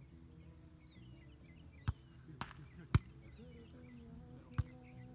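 A volleyball being struck by players' hands and forearms in a rally: four sharp slaps, about two, two and a half, three and four and a half seconds in, the one near three seconds the loudest. Faint bird chirps sound in the background.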